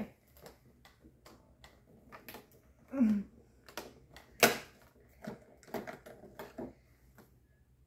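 Fingers and fingernails tapping, pressing and picking at a cardboard box's perforated door, a scatter of small clicks and scratches with one sharper click about four and a half seconds in.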